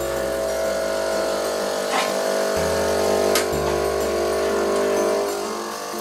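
Philips bean-to-cup espresso machine running with a steady mechanical hum. Two sharp clicks come about two and three and a half seconds in.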